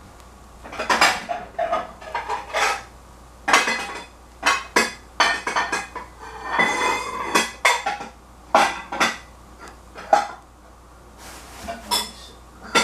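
Dishes and metal utensils clinking and clattering in a string of knocks, with a longer ringing clatter about halfway through.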